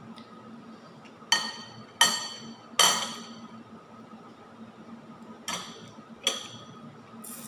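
Cutlery clinking against dishes: five sharp, ringing clinks, three close together in the first half and two more later, over a faint steady hum.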